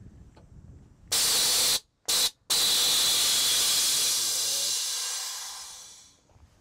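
Air-bag suspension of a 1989 Chevy Suburban dumping air: a loud hiss of air venting from the bags, first two short blasts about a second in, then one long blast that fades out as the truck settles onto the ground.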